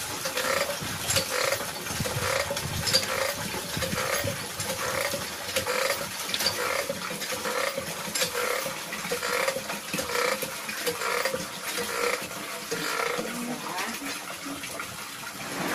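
Cast-iron hand water pump being worked steadily by its lever, squeaking about twice a second with each stroke, as water gushes from the spout into a basin.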